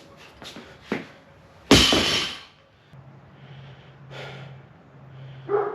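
Gym weight plates and barbell clanking: light knocks, then one loud metal clatter about two seconds in that dies away within a second. From about three seconds a low steady hum sets in.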